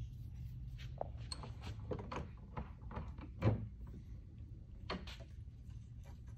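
Metal strut parts being handled and set down on a workbench: a run of light clicks and knocks with one heavier thump about halfway through, over a steady low hum.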